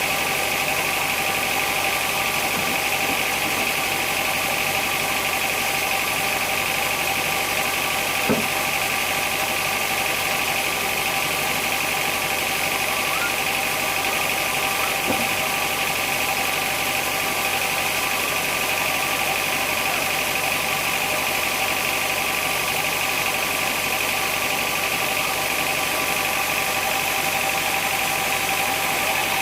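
Sawmill machinery running steadily, with two short knocks partway through.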